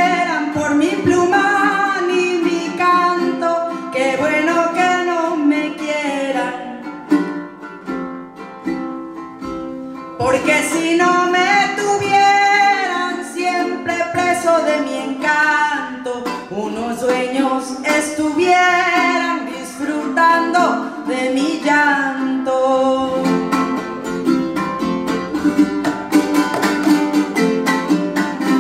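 Live son jarocho music: singing voices over rhythmically strummed small guitars. The music dips in loudness for a few seconds, the singing comes back in, and near the end the strumming carries on with little or no voice.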